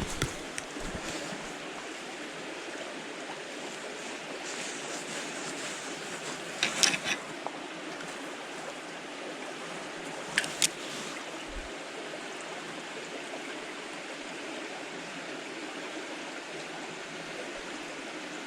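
Steady rush of a small stream flowing, with a few brief clicks about seven seconds in and again near ten seconds.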